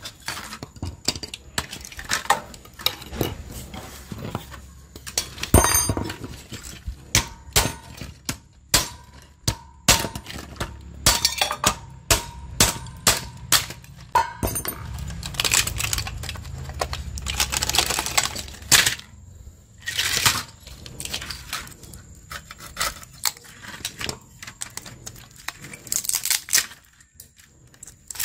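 Metal parts and hand tools from a dismantled smart TV clinking, clicking and knocking as they are handled: dozens of irregular sharp impacts, some ringing briefly.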